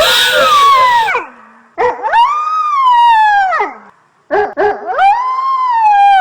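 Drawn-out, high-pitched wailing cries in a girl's voice, made as a ghost's crying sound effect. Each cry rises and then slowly sinks in pitch. One trails off about a second in, a second lasts about two seconds, and a third starts just after four seconds.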